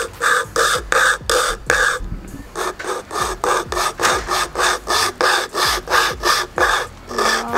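Pocket wire saw drawn back and forth through a dry tree branch: fast rasping strokes, about four a second, with a short pause about two seconds in.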